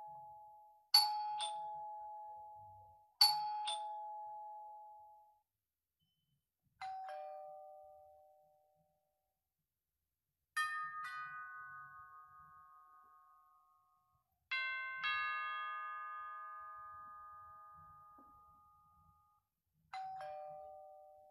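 A series of doorbell chimes, about six rings with short pauses between them. Each is a ding-dong of two or more struck notes, the second lower than the first, that rings on and fades. The later chimes have fuller, longer-ringing tones, so they sound like different doorbells.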